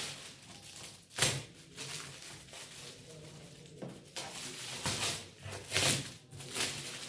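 Shiny gift wrapping and the flaps of a cardboard carton being pulled and handled: rustling with several short crinkling bursts, the loudest about a second in and again around four to six seconds in.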